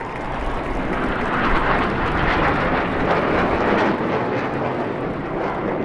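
Blue Angels F/A-18 Hornet jet flying past, its engine noise swelling over the first few seconds and easing off near the end.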